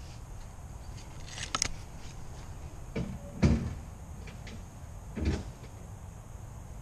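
Four short, dull knocks and bumps, the loudest about halfway through, from an air rifle being handled and raised against a wooden post.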